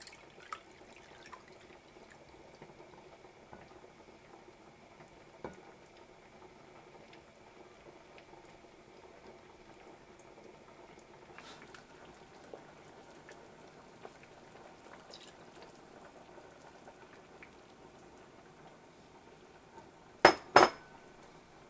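Quiet kitchen sounds with a faint steady bubbling and a few small ticks, then two sharp clinks of dishware in quick succession near the end.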